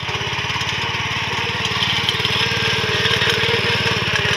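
Petrol-engined walk-behind power tiller running steadily under load as its rotary tines dig through the soil, the engine putting out a fast, even pulse.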